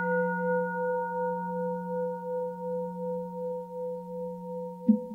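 A bowl bell (singing bowl) rings on after being struck, with several steady tones and a slow pulsing waver in loudness. It is struck again near the end.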